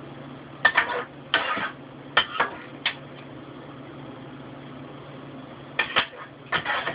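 A spoon clinking and scraping against a bowl and a glass baking dish as lasagna filling is spooned out, in about six short clatters with a lull in the middle. A steady low hum runs underneath.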